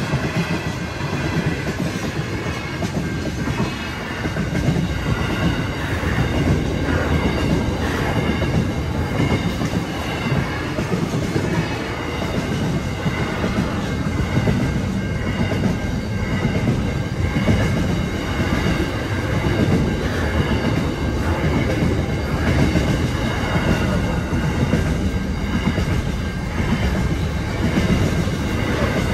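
Freight train's loaded container wagons rolling past close by: a continuous rumble of steel wheels clacking over the rails. Over it rings the level crossing's Safetran electronic warning bell.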